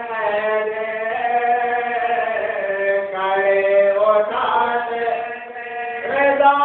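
A voice chanting a slow melodic recitation in long held notes that slide between pitches, with a short pause about five seconds in before it goes on.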